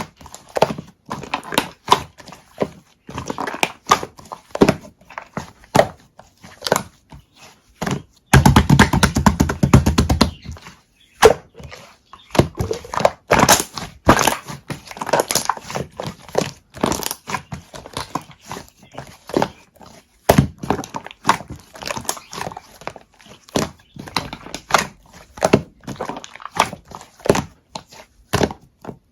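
Milk-foam slime being squeezed and poked by hand, giving a steady stream of irregular sticky clicks and pops. About eight seconds in, a dense, loud run of rapid crackling pops lasts a couple of seconds.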